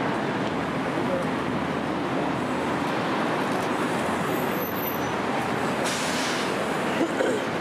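Steady city street traffic: a continuous wash of engine and tyre noise from vehicles passing.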